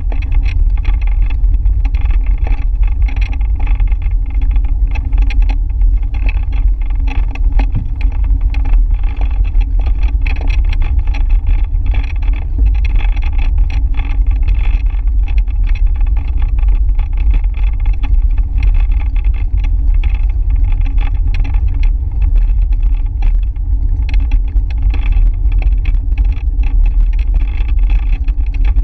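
Wind buffeting the microphone of a camera mounted on a moving bicycle: a loud, steady, blustery rumble, with a hiss of tyres on the road underneath.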